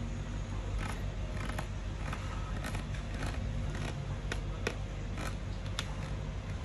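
Short, irregular scrapes and crackles of vinyl decal film being worked by hand, over a steady low hum.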